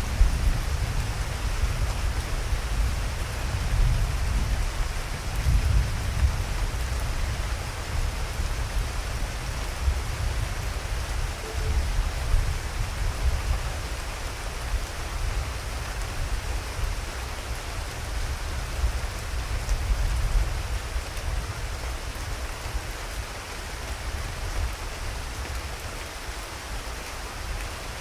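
Steady rain falling, with a low rolling rumble of thunder under it that eases off near the end.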